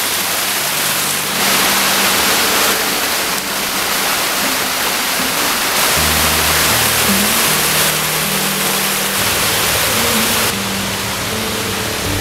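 Waterfall water rushing steadily, a dense hiss that steps up and down in level a few times, mixed with soft background music of sustained low notes.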